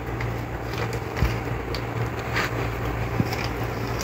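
A steady low hum, with a few faint clicks and rustles of a spoon and a plastic bag of marshmallows as they are added to a bowl of shaved ice and toppings.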